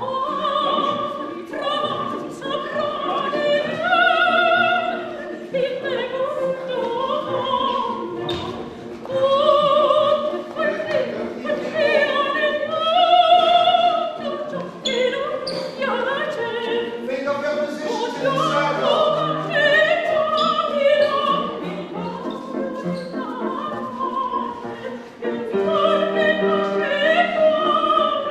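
Opera singing: a solo voice with vibrato, moving between held notes, over classical accompaniment.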